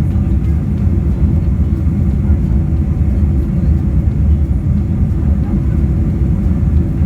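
Steady low rumble of a vehicle on the move, even throughout.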